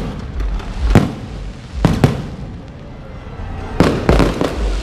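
Fireworks going off: separate loud bangs, each followed by a trailing rumble. The bangs come about a second apart at first, then after a gap of nearly two seconds a quick cluster of bangs near the end.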